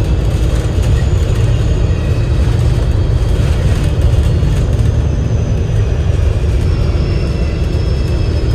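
Alexander Dennis Enviro500 MMC double-decker bus with a Cummins L9E diesel engine and Voith DIWA gearbox, heard from on board: a steady, loud low engine and drivetrain rumble. A faint high whine drifts slightly down in pitch near the end.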